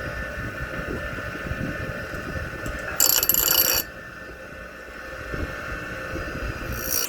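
Power grinder motor running steadily, grinding burrs off a freshly cut pipe. About three seconds in comes a loud, harsh grinding burst lasting under a second.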